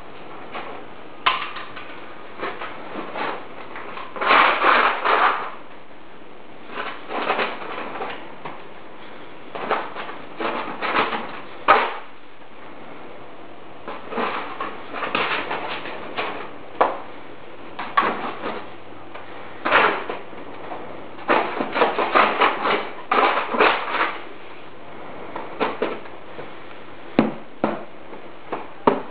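Brush and hand working a large canvas on an easel: irregular scrapes, swishes and knocks, some in quick clusters, with pauses between.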